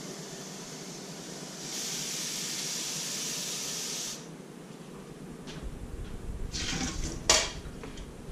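Tap water running for about two and a half seconds, then several knocks and clunks of hard plastic parts being handled.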